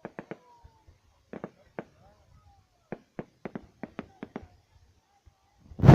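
Fireworks going off: scattered sharp pops and cracks at irregular intervals, then a much louder burst of bangs and crackling just before the end.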